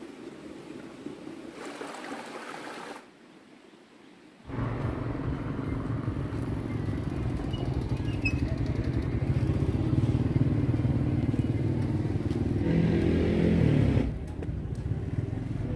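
Motorbike engines running in street traffic: a steady low rumble that starts about four and a half seconds in, after a quieter stretch, with the engine note shifting near the end.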